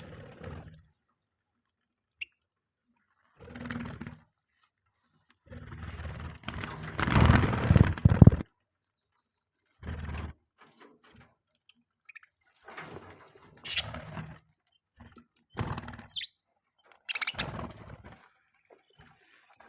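Pet budgerigars chirping in short, separate bursts as they feed. A louder burst of broad noise comes about seven to eight seconds in.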